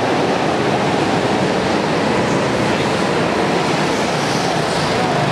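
Go-kart engines running as several karts lap an indoor track: a steady, dense drone with no break.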